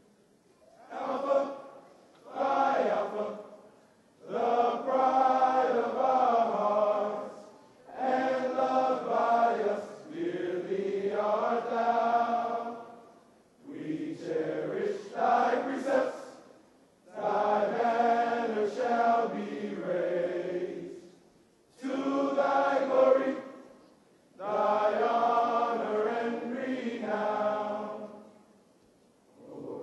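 A group of voices singing slowly together, a hymn-like song delivered phrase by phrase with short breaks between the lines.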